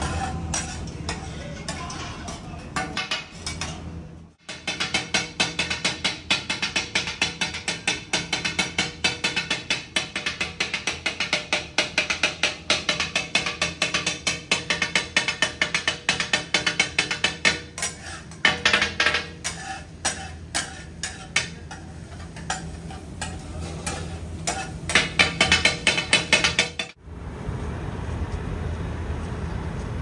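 Two flat steel spatulas rapidly chopping and scraping bheja masala on a large flat griddle, a fast rhythmic metallic clatter of several strikes a second, over a steady low hum. The clatter breaks off for a moment about four seconds in and stops abruptly near the end.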